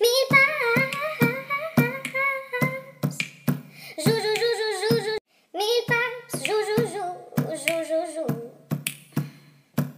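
Music: a sung vocal melody over a sharp clicking beat of about two and a half strokes a second, with a brief silent break about halfway through.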